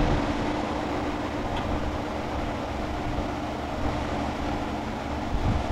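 Steady hum of a running motor, with one held low tone.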